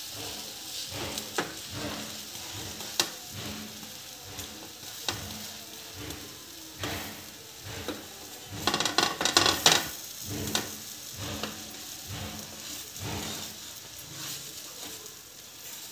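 Butter sizzling in a frying pan under slices of garlic bread, with a wooden spatula scraping and tapping against the pan. A louder flurry of scraping comes about halfway through.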